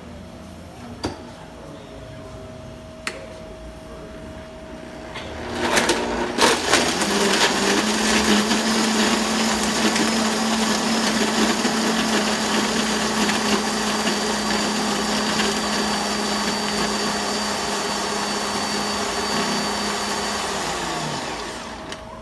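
Countertop blender starting about five seconds in, with ice clattering against the jar at first, then running steadily as it blends ice, milk, blueberry and espresso into a shake. It winds down with a falling pitch just before the end. Two light clicks come before it starts.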